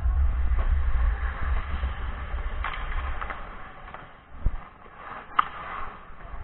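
Wind rumble and the scrape of skates on ice on a camera worn by a skating ice hockey player; the rumble dies down about halfway through. Several sharp clacks of sticks and puck follow, the loudest about five seconds in.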